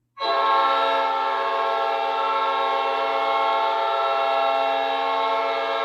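Hockey arena goal horn starting sharply and holding one long, steady blast, several tones sounding together as a chord.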